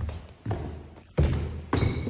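Footsteps going down a stairway: about four heavy thudding steps, roughly half a second apart, with a brief high squeak near the end.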